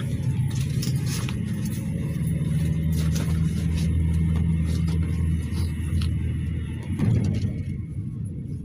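A GAZelle Next minibus driving, heard from inside the passenger cabin: a steady low engine and road drone. A brief knock comes about seven seconds in, and the drone is quieter after it.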